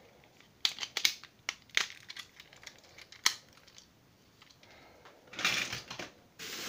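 Sharp hard-plastic clicks and snaps as a battery-powered TrackMaster Thomas toy engine is handled and its chassis and battery compartment are fitted back together, about half a dozen clicks in the first three and a half seconds. Rustling sets in about five and a half seconds in.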